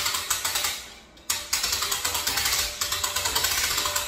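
Hand-crank winch of an HME deer game hoist ratcheting as it is cranked, a fast, even run of pawl clicks as it lifts the weight of a person hanging from the gambrel. The clicking stops for a moment about a second in, then carries on.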